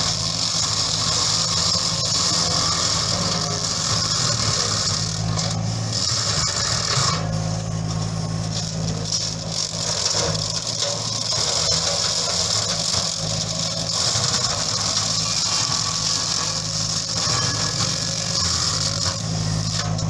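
JCB 8035 ZTS mini excavator's diesel engine running steadily under load while its hydraulic flail mulcher head spins and shreds brush and small saplings. A constant low hum with a bright hiss over it, the hiss easing briefly about seven seconds in.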